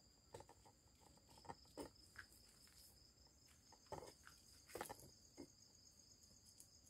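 Faint, steady chirring of crickets, with a few soft knocks and taps scattered through, the loudest about four and five seconds in.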